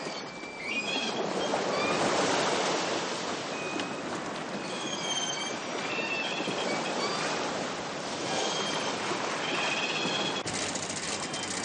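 Sea and wind rushing past a square-rigged sailing ship under way in a strong blow. Short high squeaks sound now and then over the rush, and the texture changes sharply about ten and a half seconds in.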